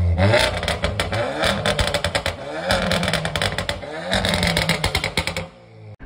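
Volkswagen Golf GTI's turbocharged four-cylinder revved through a braided custom exhaust in repeated blips, the pitch rising and falling each time, with rapid crackling pops from the tailpipes. The sound cuts off abruptly near the end.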